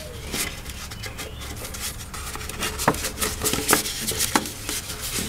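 Paper template rustling and crinkling as hands press and form it into place against the body, with several sharp crackles in the second half.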